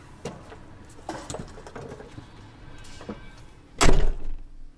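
A few light clicks and knocks, then a truck's cab door slammed shut with a loud thud near the end. After the slam the background noise drops.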